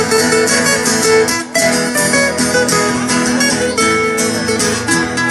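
Instrumental intro of a sertanejo song: guitars strummed and picked in a steady rhythm, with a brief break about a second and a half in.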